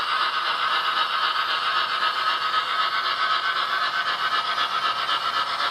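HO-scale model of a Southern Pacific AC-6 cab-forward steam locomotive pulling a short freight train, running past with a steady, fast rattle.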